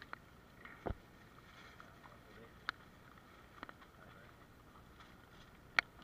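Small fish being handled on a plastic tarp: a few scattered sharp taps and clicks with a dull thump about a second in, the sharpest tap near the end, over a quiet background.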